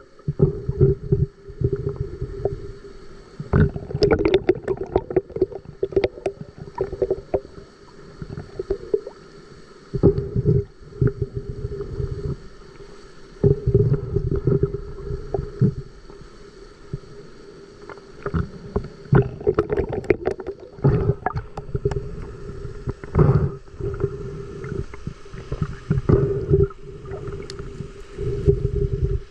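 Water sloshing and bubbling against the microphone in irregular rushes, over a steady low hum.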